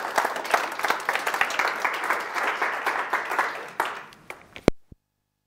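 Audience applauding, thinning out over about four seconds. Near the end there is a single sharp click, and then the sound cuts out completely.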